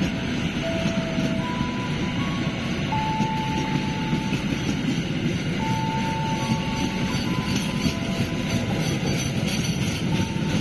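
Passenger train coaches rolling past: a steady rumble of steel wheels on the rails, with thin whining tones at several pitches that come and go every second or two.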